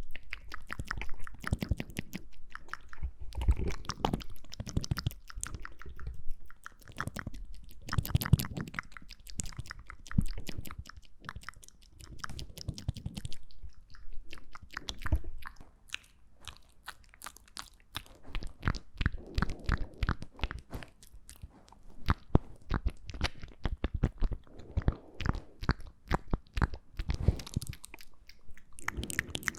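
ASMR mouth sounds made close to the microphone: a dense, uneven run of wet clicks and smacks from the lips and tongue, with some heavier low thumps among them.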